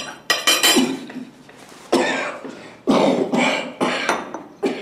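Elderly man coughing hard in a fit of repeated coughs that come in several bouts; a very strong cough.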